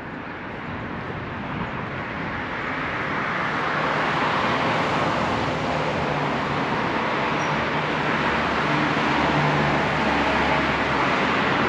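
Steady urban traffic noise, swelling over the first few seconds and then holding, with a low hum underneath.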